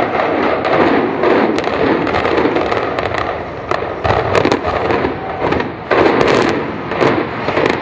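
A firework hissing and crackling steadily, with many sharp pops all through, then cutting off abruptly at the end.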